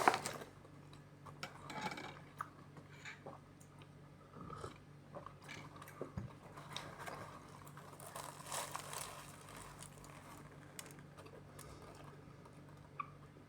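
Close-miked chewing and biting of food, with scattered small crunches and mouth clicks. A sharp knock comes right at the start.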